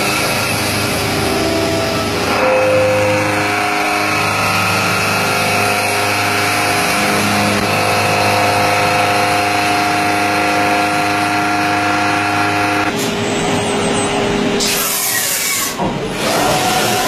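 CNC machining centre's spindle and milling cutter cutting metal by circular interpolation, a steady machining sound with a held whine. About 13 seconds in the cutting stops, and a loud hiss of air and rougher mechanical noise follow as the spindle retracts for a tool change.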